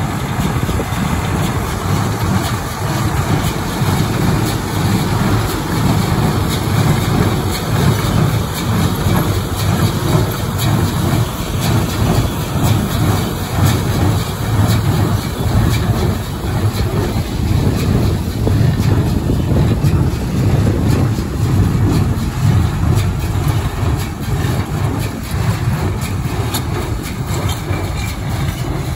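Tractor pulling a small square hay baler at work: the tractor engine runs steadily under the baler's knocking as it picks up hay and presses it into twine-tied bales.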